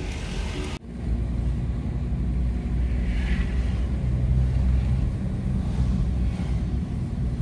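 Steady low drone of a car's engine and tyre noise heard from inside the cabin as the car climbs a hill. Under a second in, a short stretch of music cuts off at an edit.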